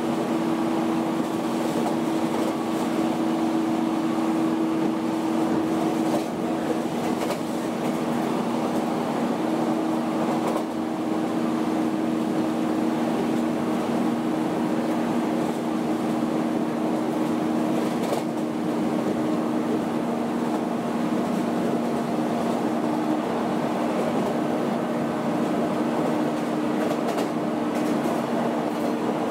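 Inside a JR 115 series motor car running at a steady speed: the MT54 traction motors and gearing give a steady two-tone hum over the rumble of the wheels on the rail, with a few faint clicks.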